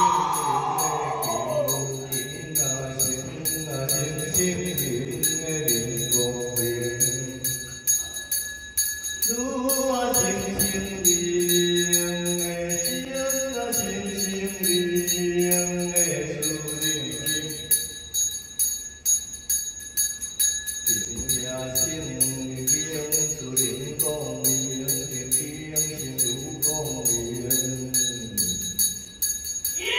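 Taoist brass hand bell shaken in a steady rhythm while a male voice chants in long, drawn-out sung notes.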